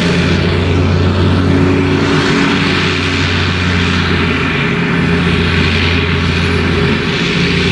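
Claas Jaguar 970 self-propelled forage harvester chopping maize with its Orbis 750 header: its engine runs steadily under load, with a rushing noise from the chopper and the crop being blown through the spout into a trailer alongside.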